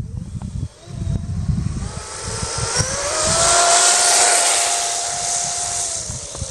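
A 1/5-scale RC snowmobile's 2500kv brushless electric motor whining as it accelerates, the pitch rising, then holding steady, then dropping near the end. The track hisses over snow-covered ice, loudest as the sled passes close about four seconds in.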